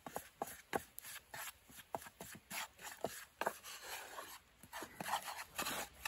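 Wooden spatula scraping and clicking against a small frying pan as it stirs a thick curry roux, in irregular strokes.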